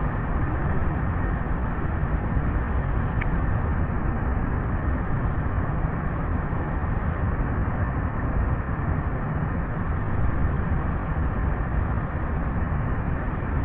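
Recording of flowing water played in reverse: a steady, even rushing noise, heaviest in the low end.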